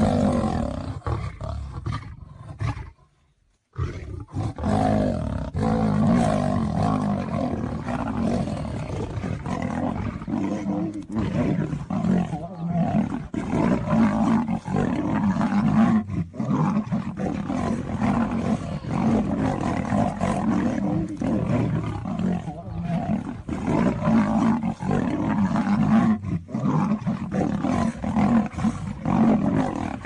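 A lion and a tiger fighting, roaring almost without a break. The sound cuts out briefly about three seconds in, then the roaring goes on.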